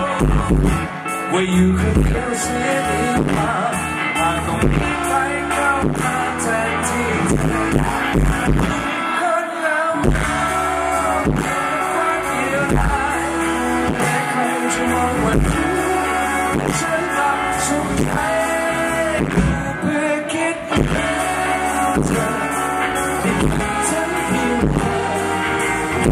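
Live band playing a pop song: electric guitar, bass guitar and drums, with a man singing over them.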